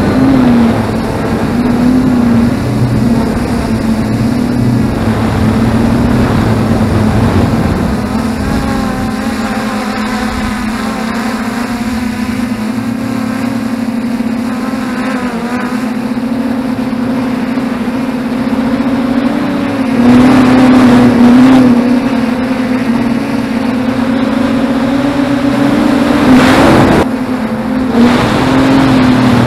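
Quadcopter's brushless motors and propellers humming steadily as heard from the onboard camera, with wind noise over the microphone. The hum gets louder and slightly higher about twenty seconds in, and again briefly near the end, as the throttle is raised.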